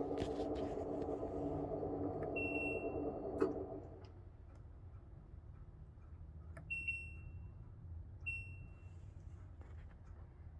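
LG WM2501HWA washing machine running with a loud rumbling hum, a noise its owner suspects may come from a bad bearing. The rumble dies away about four seconds in. The washer's control panel beeps once a little over two seconds in and twice more later, short high beeps.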